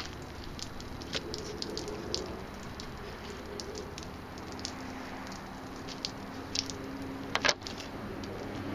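Meltwater dripping from a motorhome roof in light, irregular ticks and patters. A sharp double knock comes about seven and a half seconds in.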